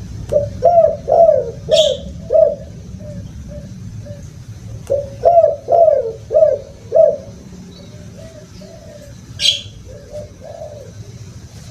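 Spotted dove cooing: two phrases of about five coos each, then a few softer coos. A brief high chirp sounds twice, once in the first phrase and once near the end, over a low steady hum.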